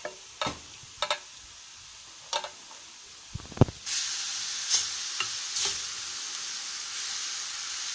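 A few short clinks and knocks of stainless cookware being handled, then, about four seconds in, chopped mushrooms sizzling steadily in a stainless-steel sauté pan as a spatula stirs them, their juice boiled off and the mushrooms now frying.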